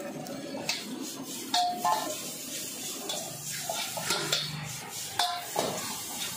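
Steel ladle striking and scraping a large metal wok as chicken noodles are stir-fried, over a steady frying hiss. Several sharp clanks come at uneven intervals, a few with a brief metallic ring.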